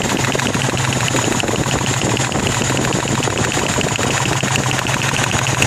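Toyota 22R 2.4-litre four-cylinder engine idling with a steady, fast, even knocking. The owner, who has just set the valve lash, believes it comes from the valve rockers, more from the back of the engine.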